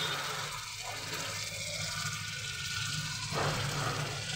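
Masala sizzling in a kadai while a spatula stirs in freshly added yogurt, scraping against the pan, with one louder scrape a little over three seconds in.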